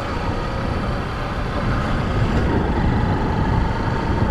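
Motorcycle engine running steadily, a continuous low drone.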